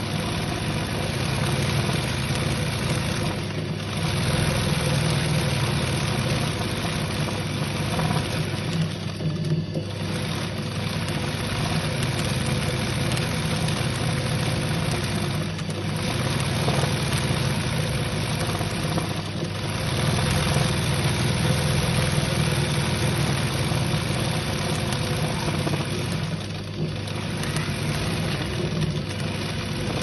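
Sewing machine running steadily, its needle stitching fast as the hooped cloth is moved by hand for free-motion embroidery, with a few brief dips in the sound.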